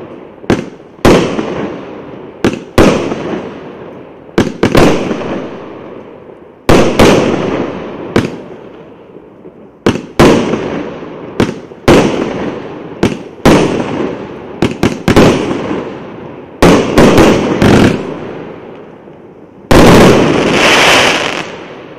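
A 49-shot firework cake firing in sequence: about twenty sharp bangs at irregular intervals, some in quick pairs, each followed by a fading tail. Near the end a louder burst lasts about two seconds.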